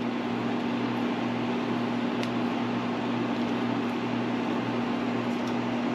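Steady mechanical hum of a running fan or air-conditioning unit, even in level throughout, with a few faint light clicks above it.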